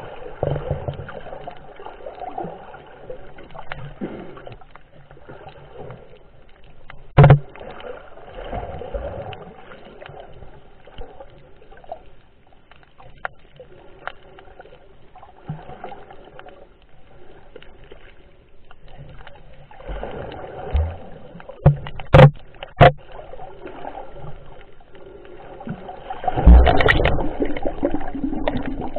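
Muffled underwater water noise picked up by a submerged camera while snorkelling. A few sharp knocks are heard, one about a quarter of the way in and two close together about three-quarters in. A louder rush of water noise comes near the end.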